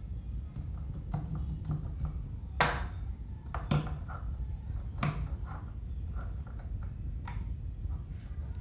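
Metal parts of an old electric fan clinking and knocking as it is reassembled by hand: light ticks, then three sharp knocks a second or so apart and a last lighter one, over a steady low hum.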